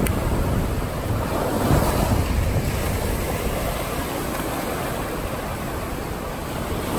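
Surf washing up the beach, with wind buffeting the microphone as a steady low rumble.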